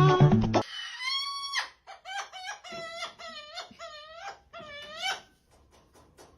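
A bird giving a quick run of short, repeated calls that dip and rise in pitch, after a snatch of music that cuts off just into the start. A few faint clicks follow near the end.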